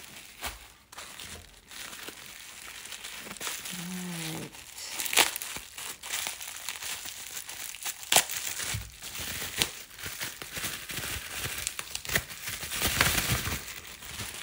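Crinkling and rustling of packaging being handled and torn open, with a few sharp clicks along the way.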